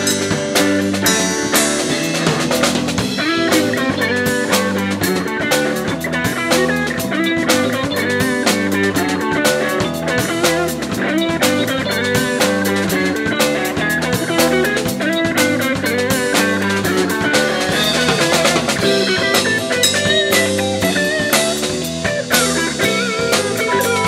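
Live jazz-funk fusion band playing: electric guitar over a busy drum kit groove with a moving bass line.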